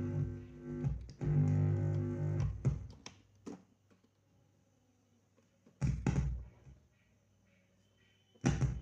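Plucked-string-like instrument tones ring for about three seconds as two sustained notes, then fade. Two short thumps follow, about six and eight and a half seconds in.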